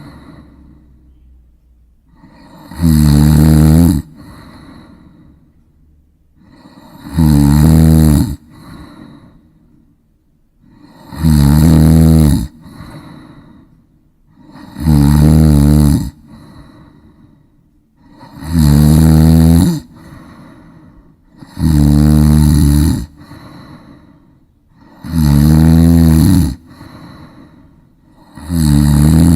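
Loud snoring. A rasping snore about a second long comes roughly every three and a half to four seconds, with a softer breath between snores.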